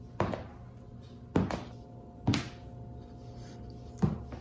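A slipper on a cat's front paw clomping on a hardwood floor as the cat walks: four dull thuds, unevenly spaced.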